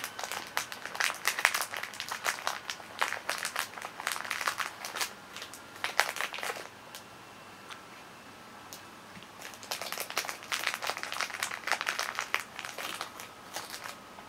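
A cat crunching pieces of dry cat food, a quick run of crisp cracks as it chews. Two bouts of chewing, the first lasting about six seconds, then a pause, then a second bout starting about ten seconds in.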